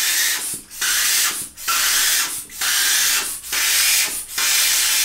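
Pump sprayer misting aftershave lotion onto the face, a short hiss with each squeeze. About six sprays come in a steady rhythm, roughly one a second.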